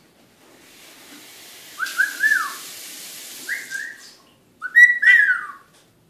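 Male eclectus parrot whistling in short gliding notes: a quick run of three about two seconds in, two more around three and a half seconds, then a louder burst of whistles near the end. A faint steady hiss lies under the first notes.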